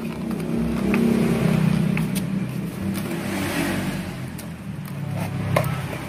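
Engine-revving sound effect from a toy remote-control racing car, played through its small built-in speaker, with a few light taps.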